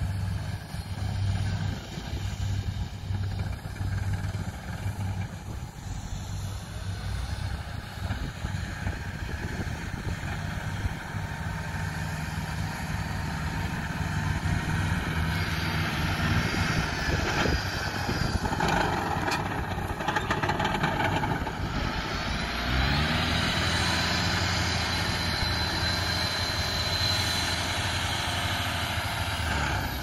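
Engine of farm machinery running steadily in a rice field; about three-quarters of the way through it rises in pitch and holds at higher revs.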